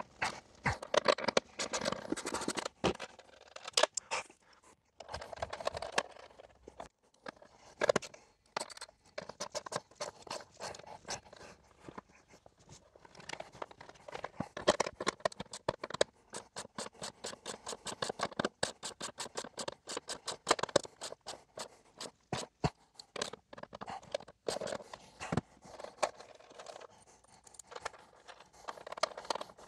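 Hand ratchet clicking in quick runs of strokes, broken by short pauses, with clinks and scrapes of metal tools and hardware. The ratchet is turning a nutsert install bolt to compress nutserts into the sheet metal.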